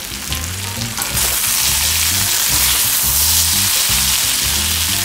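Chopped amla (Indian gooseberry) frying with spices in a steel kadai, sizzling steadily, with a metal spoon stirring through the pieces. The sizzle swells louder about a second in.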